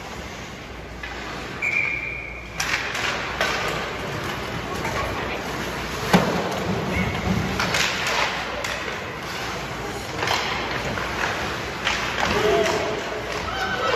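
Ice hockey play in an arena: a string of sharp clacks and thuds from sticks, puck and boards, the loudest about six seconds in, over spectators' voices. A short whistle sounds about two seconds in.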